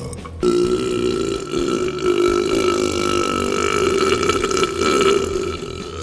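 A man's long, deliberately drawn-out belch into a microphone, a longest-burp competition attempt. It starts abruptly about half a second in, holds a fairly steady pitch for about five seconds, and tapers off near the end.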